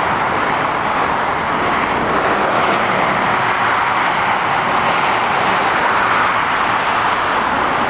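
Steady motorway traffic noise from lorries and cars driving along the carriageway: a continuous hiss of tyres on the road with engine noise under it, no single vehicle standing out.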